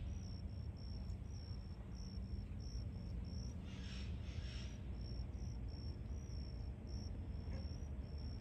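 Insect chirping: short, high-pitched chirps repeating steadily about two or three times a second, over a low steady rumble.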